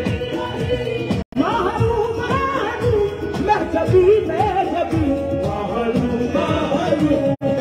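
Qawwali music: a male voice singing a winding, ornamented melody over a held harmonium drone and a steady tabla beat. The sound drops out for an instant twice, about a second in and near the end.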